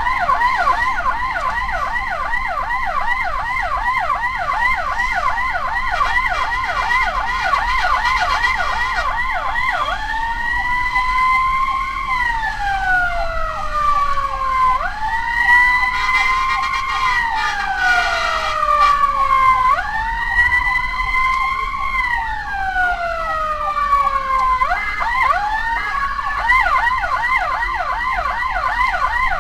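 Ambulance's electronic siren on a rapid yelp, switching about ten seconds in to a slow wail that rises and falls three times, about five seconds each, then back to the rapid yelp near the end.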